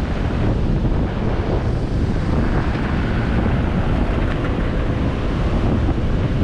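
Steady wind buffeting the microphone of a camera mounted outside a 4x4 driving along the beach, with low vehicle rumble and breaking surf beneath.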